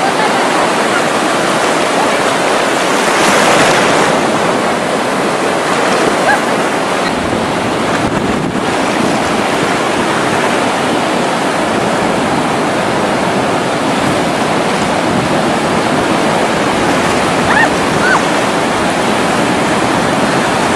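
Ocean surf breaking and washing through the shallows, a steady rush, with wind buffeting the microphone.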